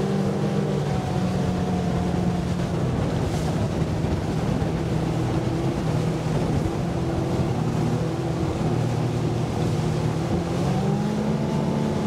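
Bay boat's outboard motor running hard under way over a steady rushing noise. The engine note eases slightly in the middle and rises again near the end.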